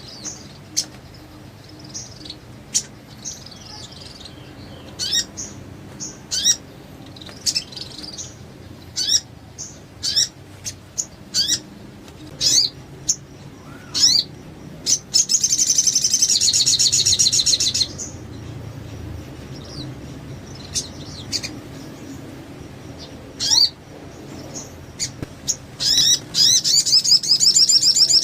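Crimson sunbird (sogon) singing: a series of sharp, high chirps about once a second, then a fast, high trilling song lasting about three seconds halfway through, and another rapid trill starting near the end.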